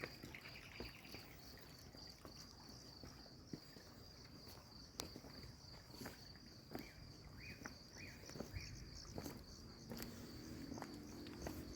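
Crickets chirping at night in a steady, fast high pulsing, with short chirp series from another insect near the start and again midway. Scattered light clicks of footsteps run through it, and a low hum comes in near the end.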